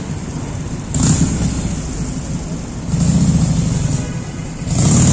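City street traffic: cars passing, the noise swelling about a second in, again around three seconds in, and near the end.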